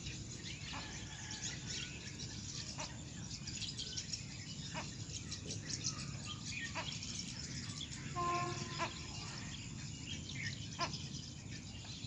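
Water birds chirping and calling over and over in short, quick notes, with one lower, held call about eight seconds in, over a steady low background rumble.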